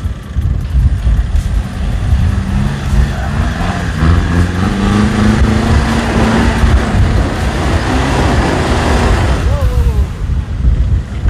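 Off-road 4x4's engine running under load over a heavy low rumble, its note climbing through the middle for several seconds and easing off near the end.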